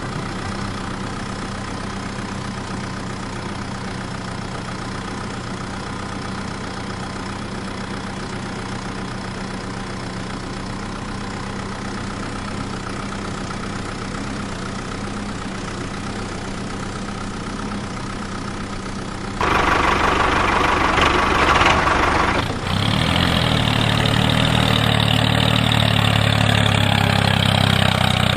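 A small motor running steadily with an even hum. About 19 seconds in it suddenly becomes louder and rougher, then settles into a louder steady run a few seconds later.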